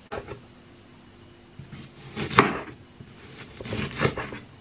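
Kitchen knife cutting through a halved onion onto a wooden cutting board. There is one sharp cut about two and a half seconds in, then several quicker cuts near the end.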